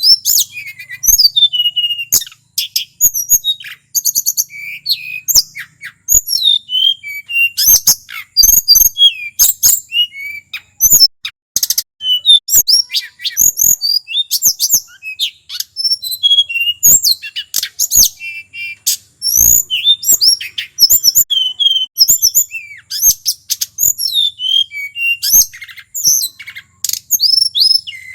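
Male tledekan gunung singing a long, continuous, rolling song: rapid, varied whistles, trills and sharp clicking notes with almost no pause.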